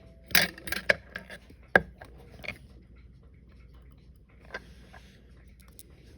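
Small metallic clicks and taps of watchmaker's tools and watch parts on the workbench during disassembly of a wristwatch: a quick cluster in the first second, one sharp click a little under two seconds in, then a few sparser, lighter taps.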